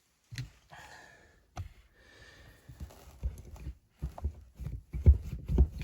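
Hand grease gun being worked on a chainsaw bar: a run of irregular clicks and knocks, with the loudest thumps near the end.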